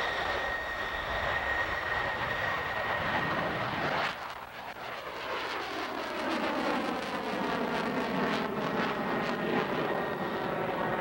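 Sukhoi Su-37 jet fighter's twin jet engines as it climbs away: a loud rushing rumble with a steady high whine. About four seconds in, the whine fades and the noise takes on a sweeping, phasing swoosh as the jet pulls up and away.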